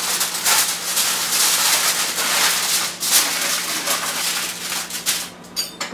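Aluminium foil crinkling and rustling as it is pressed and folded around a baking pan, with a few sharper clicks near the end.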